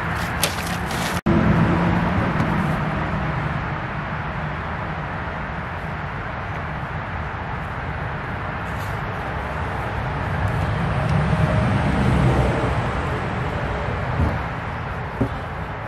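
Steady background rumble of road traffic that swells about ten to twelve seconds in, as a vehicle passes, then eases off. A brief dropout comes a little over a second in.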